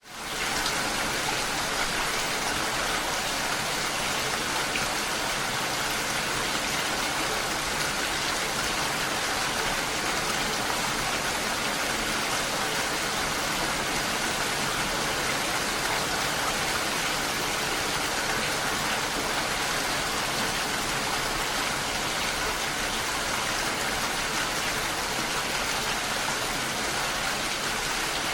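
Steady rain falling on a lake, a dense, even hiss that fades up from silence at the very start and then holds unchanged.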